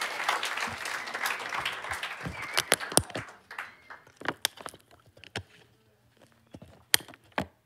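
Scattered applause and crackling dying away over the first few seconds, then a few separate clicks and knocks in a quiet room.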